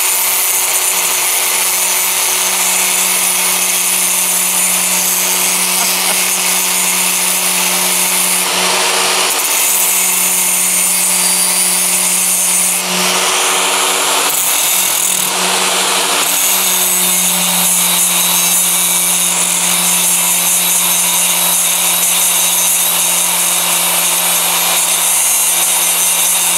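Angle grinder running under load while a steel knife blade is pressed onto its spinning disc and ground away, giving a continuous harsh grinding hiss over the motor's steady hum. The motor's hum shifts briefly a few times in the middle.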